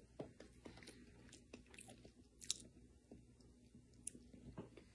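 Near silence with faint chewing: a person eating a mouthful of omelet, with a few soft scattered clicks.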